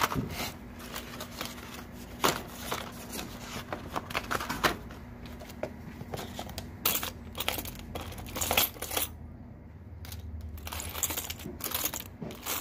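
Loose metal keys, key rings, coins and small hardware clinking and jingling as a hand rummages through them in a plastic basket, a string of irregular clinks.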